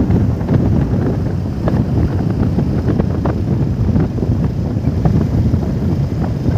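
Wind buffeting the microphone on a moving ride: a loud, steady low rumble with faint scattered ticks.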